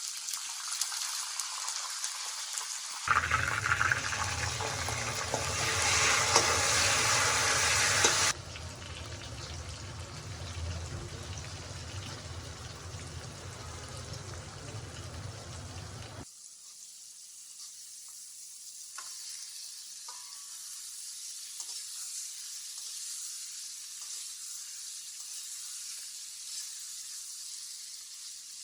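Food frying in hot oil in a pan, a steady sizzle, likely the potatoes for the aloo dish. The sizzle changes abruptly in level about 3, 8 and 16 seconds in, is loudest between about 3 and 8 seconds, and has a low hum under it between about 3 and 16 seconds.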